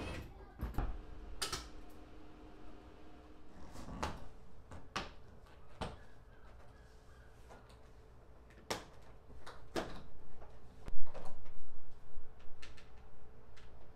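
Plastic interior trim clicking and knocking as it is handled, with the loudest run of snaps late on as the 2018 Honda Civic's kick panel is pulled off its retaining clips. A faint steady hum sits underneath.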